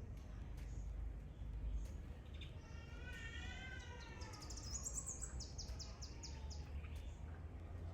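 Birds calling: a wavering call about three seconds in, followed by a quick run of high, short chirps that step up in pitch, over a steady low rumble.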